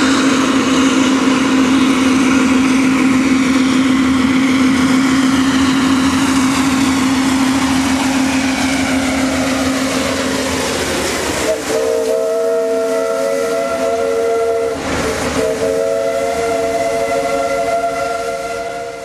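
Steam whistle blowing in long held blasts over a hiss of steam: first one low note, then from about 11 seconds a chord of several notes, broken briefly around 15 seconds.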